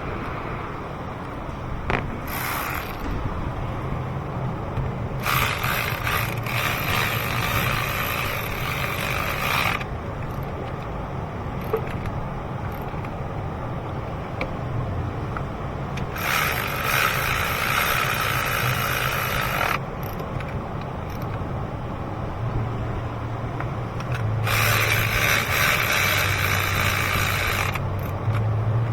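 Ratchet wrench clicking as it is cranked: a short burst about two seconds in, then three long runs of several seconds each, over a steady low hum.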